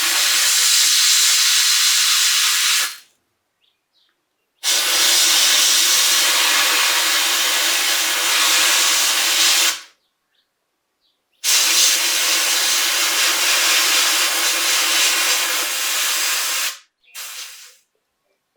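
Compressed air hissing from an air tool in three long bursts of about three to five seconds each, with short pauses between, then a brief burst near the end.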